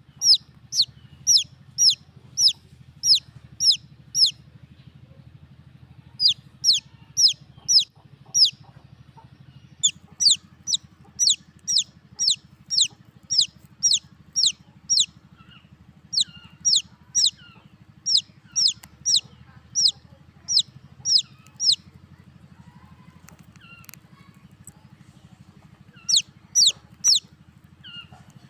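Baby chicks peeping: loud, high, downward-sliding peeps, about three a second, in runs broken by short pauses.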